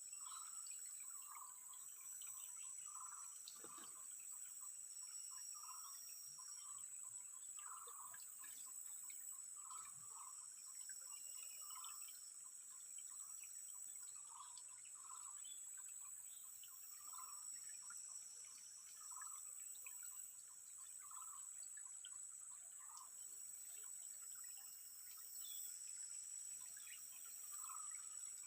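Faint ambience of insects: a steady high-pitched drone, with short animal calls repeating every second or two and a light trickle of water.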